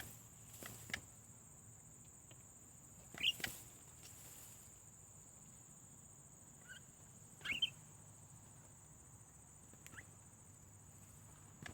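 Faint outdoor ambience: a steady high insect drone, with two short bird chirps, about three seconds in and again about seven and a half seconds in.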